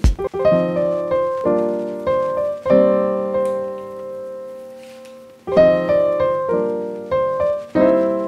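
Background piano music: chords struck and left to ring and fade, with a new phrase starting about two thirds of the way through.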